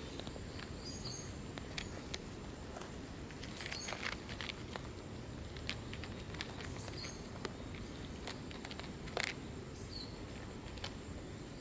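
Outdoor ambience: a steady low rumble with scattered soft clicks and taps, and a few brief high chirps about every three seconds.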